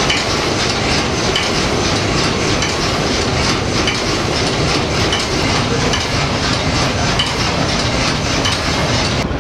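Steam engine and paddle wheels of the paddle steamer PS Waimarie running steadily under way: a loud, even mechanical clatter with a faint repeating beat, heard from inside the engine room.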